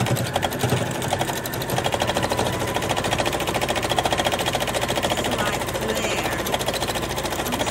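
Domestic sewing machine running steadily at speed, the needle stitching in a fast, even rhythm as free-motion squiggles are sewn through layered fabric and interfacing.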